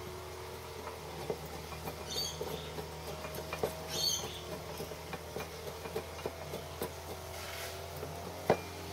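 Scattered small clicks and scrapes of metal workshop parts being handled, as a cast aluminium foot is held and fitted against a milling machine bed, with one sharper click near the end. A steady low hum runs underneath.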